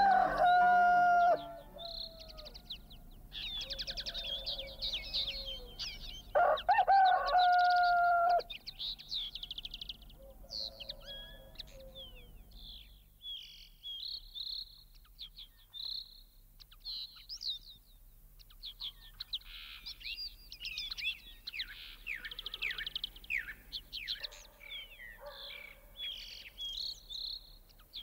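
Rooster crowing twice, once at the start and again about seven seconds in, over continual high, rapid chirping of small songbirds.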